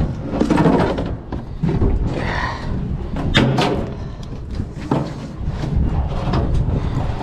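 Irregular knocks and thuds on a boat deck, over a constant low rumble.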